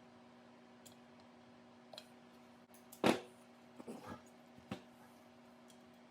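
A few light clicks and knocks of handling, the loudest just after three seconds in, over a faint steady hum.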